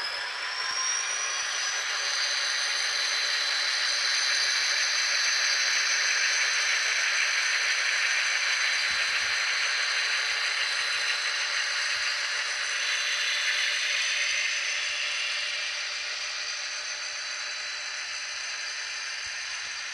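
HO-scale model train of four Chessie System diesel locomotives and loaded coal hoppers running past: a steady high whine over a rolling hiss, with one whine rising in pitch right at the start. It is loudest in the middle and eases near the end as the hoppers follow the locomotives.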